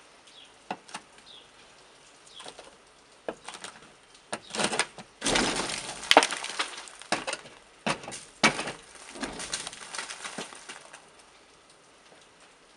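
Wooden stick striking icicles along a roof edge: a few single knocks, then a dense run of ice cracking and breaking off, loudest about six seconds in, with a last few knocks trailing off before the end.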